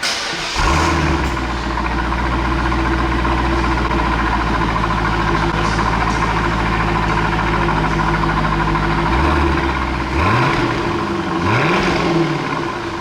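Car engine fitted with a new Borla ATAK exhaust catching and starting about half a second in, then idling steadily, with two short throttle revs near the end.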